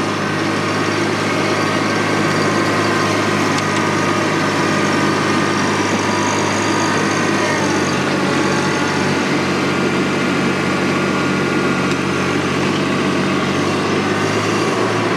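TYM T264 compact tractor's three-cylinder diesel engine running at a steady working speed while the tractor handles brush with its front-loader grapple.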